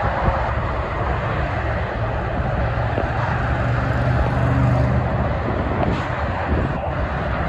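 Freeway traffic noise: a steady rush of tyres and engines from cars and tractor-trailers on a multi-lane highway. A passing tractor-trailer's diesel engine drone swells and fades about halfway through.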